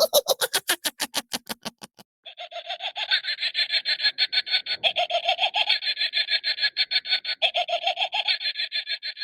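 Witch cackle sound effect. A short cackle falls in pitch over about two seconds. After a brief pause comes a long, high, raspy cackle of fast staccato pulses that lasts about seven seconds.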